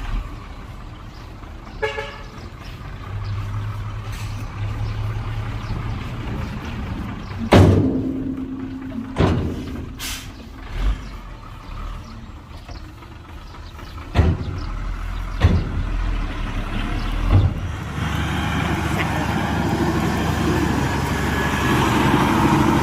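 Heavy diesel earthmoving machinery running steadily, with several sharp metallic clanks over the middle of the stretch. The engine grows louder and busier from a few seconds before the end, as if working under load.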